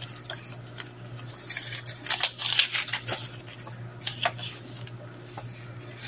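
Paper pages of a handmade junk journal rustling as they are turned by hand, several rustles in the middle with a few soft ticks.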